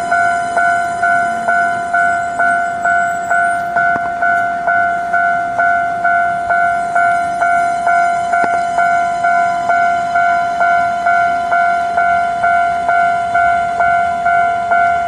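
Japanese railway level-crossing warning bell ringing on and on in an even, rapid ding, about two and a half strikes a second, each fading before the next. The crossing was put out of order by a lightning strike, and at places its bell kept ringing without stop.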